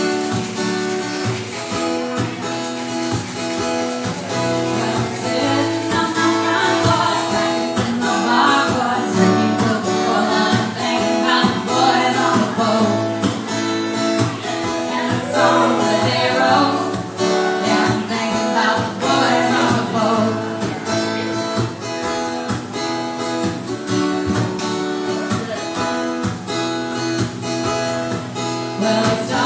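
Acoustic guitar strummed in steady chords, with two women's voices singing over it from about six seconds in: a live song performed through microphones.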